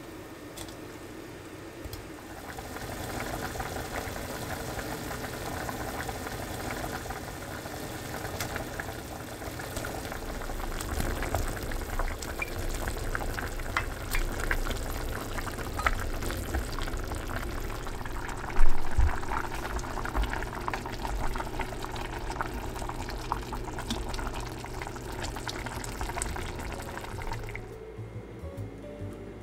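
Beef-brisket doenjang stew boiling in a pot, a steady bubbling with many small pops. A single sharp knock comes about two-thirds of the way through.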